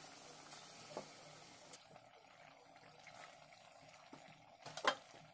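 Palm-fruit fritters deep-frying in hot oil in a metal wok: a steady sizzle with small crackles, and one sharper click near the end.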